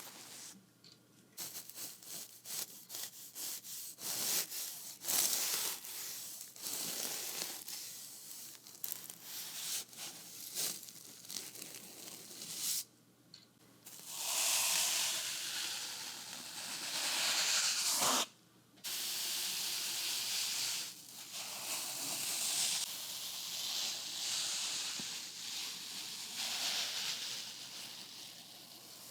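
Paint being worked across a wooden board with painting tools, close up. First comes a quick run of short dabs and strokes. After a brief pause it gives way to longer, continuous hissing strokes.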